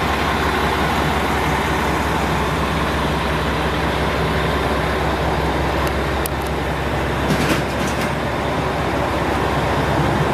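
KiHa 41 diesel railcar idling at the platform: the diesel engine's steady low hum. A few short clicks sound around six to eight seconds in.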